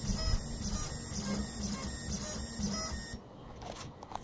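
Delta 3D printer's stepper motors running as the effector moves over the bed during proximity-sensor auto-calibration, giving short whining tones that change pitch with each move. The motors stop about three seconds in.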